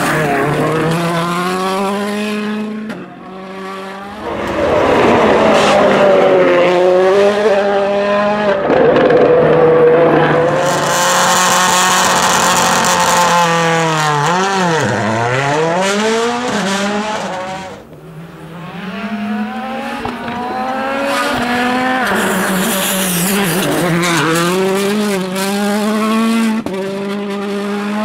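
2017-spec World Rally Car engines, 1.6-litre turbocharged four-cylinders, driven flat out on a rally stage: the note climbs through the gears again and again with quick shifts between. About halfway through the pitch drops sharply and climbs straight back up.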